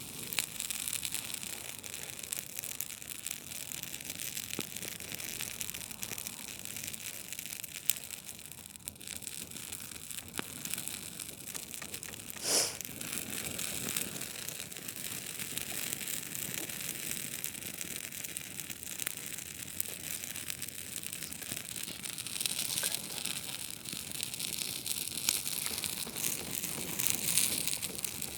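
Campfire burning with a steady crackle of many small pops, and one louder pop about twelve seconds in.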